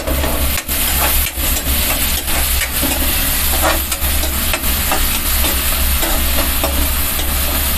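Chopped onion frying in hot oil in an aluminium kadai, sizzling steadily while a metal ladle stirs and scrapes it with frequent irregular scrapes and taps. A steady low hum runs underneath.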